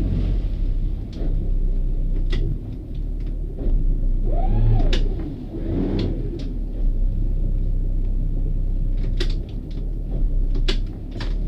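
Motor cruiser's inboard engine running at low speed, a steady low rumble heard from the helm, with scattered light clicks and knocks and a short rising-and-falling squeak about four and a half seconds in.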